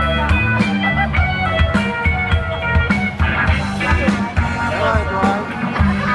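Live blues-rock band playing an instrumental break: a guitar melody with bending notes over a drum kit keeping a steady beat.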